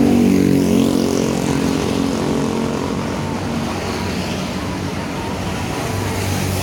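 Bus ship-style horn (klakson kapal laut) sounding a deep, steady blast that fades out about a second and a half in. After it, the bus engine keeps running with road noise.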